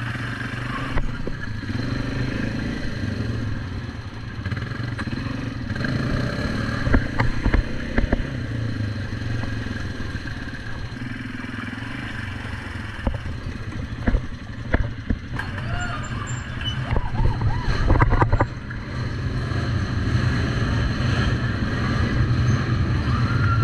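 ATV (quad bike) engine running as it is ridden over rough ground, with several sharp knocks and rattles through the middle.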